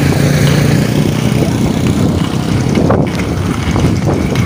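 Inline skate wheels rolling on a rough asphalt road, a steady loud rumble, with wind buffeting the microphone.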